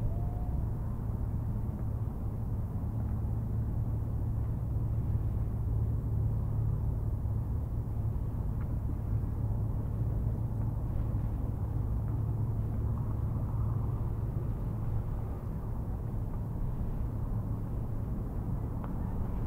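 A steady low rumble with a constant low hum underneath, unchanged throughout.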